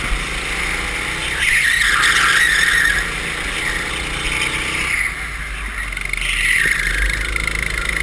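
Go-kart engine running at speed, heard from an onboard camera with wind rushing over the microphone. Two louder hissing stretches rise and fall, about a second and a half in and again about six seconds in.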